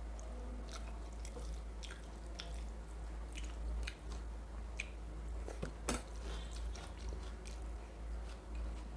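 Close-miked chewing of mutton curry and rice: wet mouth clicks and smacks, with a sharper click about six seconds in, over a steady low hum.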